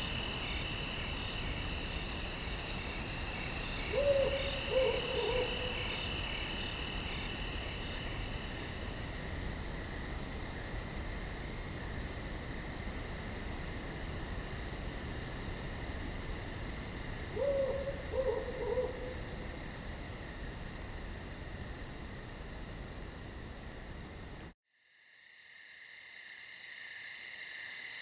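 A night chorus of crickets trilling steadily, with an owl hooting twice, a short run of hoots each time. About 24 seconds in, the sound cuts out and a different insect chorus fades back in.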